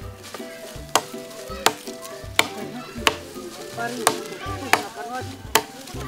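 Wood being chopped with a bolo, a sharp strike about every 0.7 seconds.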